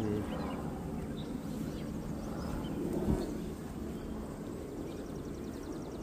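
Steady low buzzing of honeybees around an open hive, with a single sharp knock about three seconds in.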